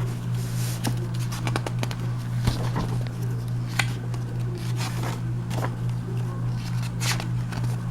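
Rustling and soft clicks of a paper catalog being handled and its pages turned, over a steady low hum.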